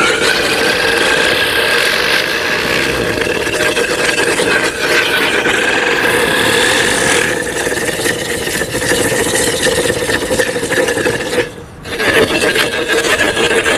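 Chakri ground-spinner firework spinning and burning inside a pressure cooker: a loud, rasping hiss with a steady whine in it, dipping briefly near the end.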